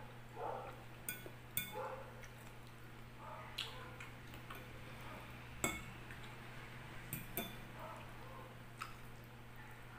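Fork clinking against a glass bowl as it picks up leafy vegetable salad: about seven sharp, separate clicks at irregular intervals.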